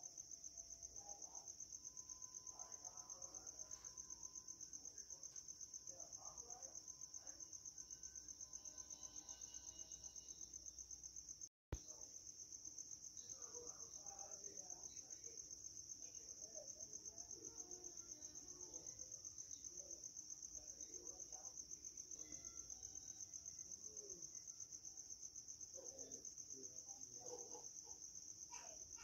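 Faint steady chirping of insects, a continuous high-pitched trill of rapid pulses, broken by a brief gap about twelve seconds in.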